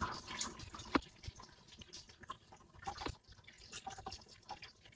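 Faint, scattered small clicks and taps from a kitchen knife cutting vent slits in raw pie crust in a glass baking dish. The sharpest clicks come about a second in and near three seconds.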